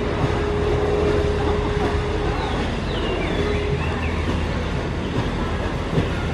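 Busy outdoor ambience: a steady low hum under a murmur of distant voices, with a held mid-pitched tone for the first couple of seconds and again briefly near the middle.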